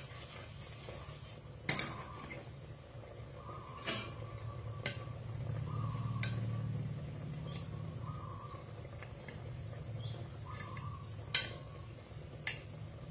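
A metal spoon clinking and scraping against a clay cooking pot as simmering fish are stirred, a handful of sharp knocks, the loudest near the end. Birds chirp in short repeated notes in the background over a low steady hum.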